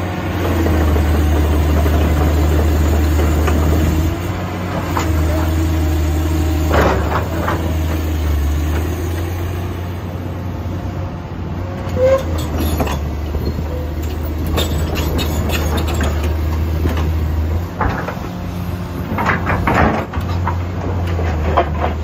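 Komatsu PC400-7 crawler excavator's six-cylinder diesel engine running with a steady low drone that drops and rises a few times as the machine works. Intermittent metallic clanks and squeals come from the steel tracks and working gear as it moves.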